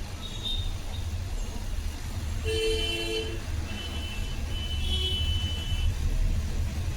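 Hot-air rework station blowing steadily while it heats a phone's charging jack to melt the solder, a constant low hum. A brief tone sounds about two and a half seconds in.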